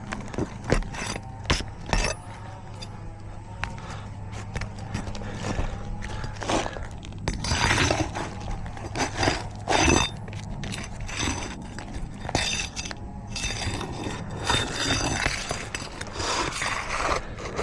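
Steel flat bar prying under asphalt roof shingles: repeated scraping with sharp clicks and knocks as the shingles are broken loose and their nails worked out.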